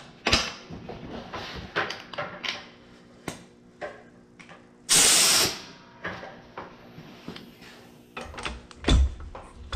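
Hand ratchet wrench clicking in short, irregular strokes while loosening the nut on a clutch pedal's pivot, with a brief loud hiss about five seconds in and a couple of thuds near the end.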